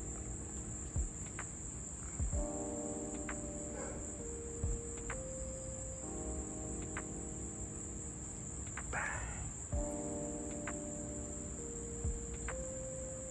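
Crickets chirring in one steady, high continuous drone. Underneath runs a sustained chord that shifts every few seconds, with a few faint clicks.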